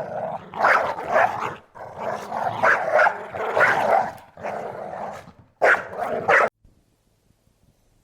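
A dog barking repeatedly, in quick loud barks that stop suddenly about two-thirds of the way through.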